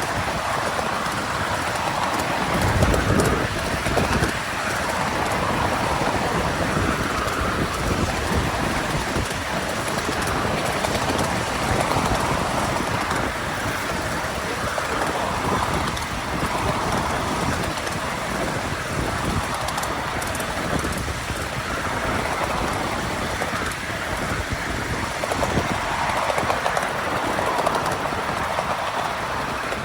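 Miniature railway train running along the track: a steady rumble with a rapid clatter of wheels on the rails.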